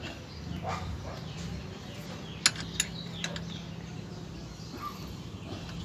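Two sharp metallic clicks about a third of a second apart, then a softer one, over a low steady hum: the loose battery terminal clamp being handled and checked for play.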